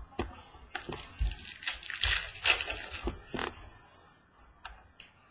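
Crinkling and rustling of a foil trading-card pack being handled and torn open, with sharp clicks mixed in. It dies down to a few faint clicks after about three and a half seconds.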